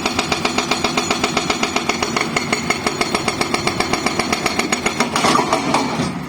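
Excavator-mounted hydraulic rock breaker hammering on stone in a fast, even stream of about eight blows a second, over the machine's engine. It turns harsher a little after five seconds in, then the hammering stops shortly before the end.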